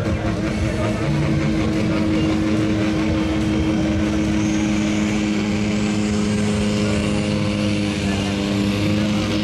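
Diesel pulling tractor's engine running steadily at the start line before a pull, with a high whine that climbs steadily from about halfway through.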